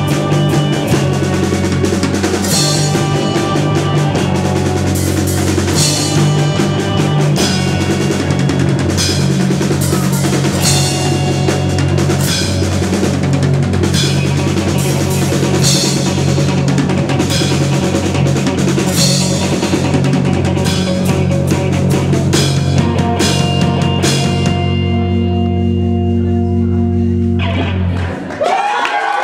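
Live indie rock band playing: drum kit, bass guitar and electric guitar at full volume. About 25 s in the drums stop and the guitars ring on held notes for a few seconds before cutting off as the song ends, with crowd noise starting right at the end.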